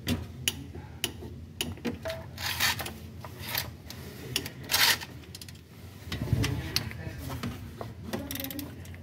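Socket ratchet clicking as the bolts of a Toyota 2AR-FE engine's new balancer shaft assembly are run in. Scattered single metallic clicks alternate with short stretches of rapid ratcheting.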